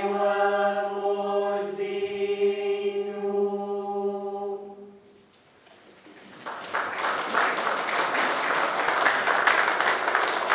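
A small group of singers holds one long unaccompanied chord for about five seconds, and it dies away. About six and a half seconds in, audience applause breaks out and goes on.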